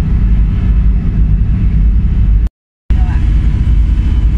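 Loud, steady low engine rumble of a moving vehicle, with faint voices in the background; the sound cuts out completely for a moment about two and a half seconds in.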